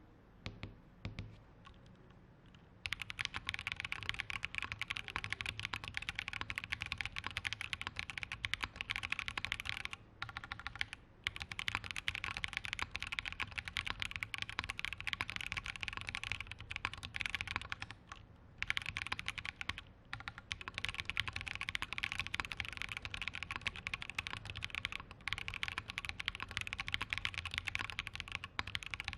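KBDFans D60 mechanical keyboard with full-POM Purple Potato switches, a PC plate and GMK keycaps being typed on. A few single keystrokes at first, then fast continuous typing from about three seconds in, with a few short pauses.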